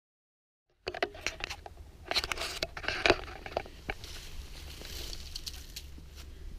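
Irregular rustling and crunching with sharp clicks, loudest in the first few seconds, over a steady low rumble. It starts suddenly out of silence about a second in.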